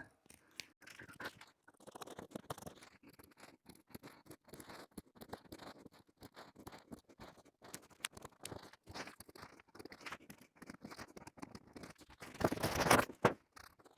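Old truck seat cover being cut and worked off its foam cushion: a run of small snips, scratches and clicks, with a louder rustling burst near the end.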